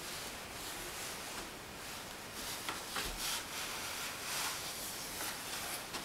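Soft rustling with a couple of light knocks about halfway through, as a sheet-wrapped washing machine strapped to a metal hand truck is maneuvered through a doorway.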